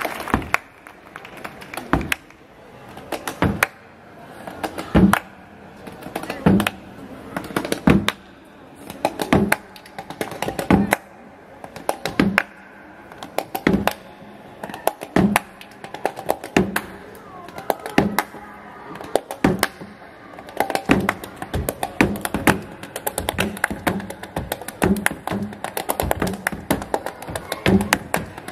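Flamenco body percussion by three players: handclaps (palmas) and slaps on the body in a rhythm. A loud, deeper slap falls about every second and a half, with quicker, lighter claps between that grow denser about twenty seconds in.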